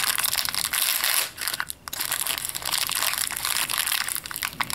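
Foil blind-bag packet and plastic wrapping crinkling as they are handled, a dense run of crackles with a short lull just under two seconds in.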